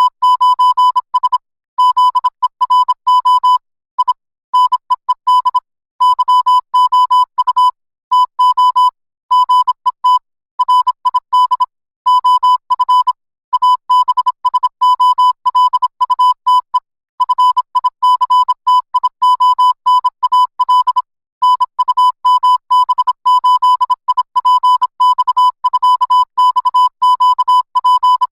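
Morse code tones: one high, buzzy beep keyed on and off in a long string of short and long pulses with irregular gaps, at a steady pitch throughout.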